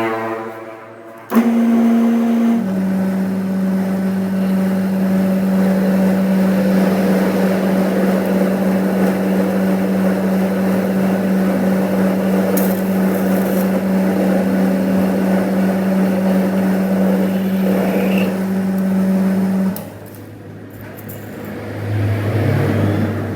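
A workshop machine starts abruptly and runs with a steady, even hum and a noisy hiss for about eighteen seconds, then stops; a lower hum swells near the end.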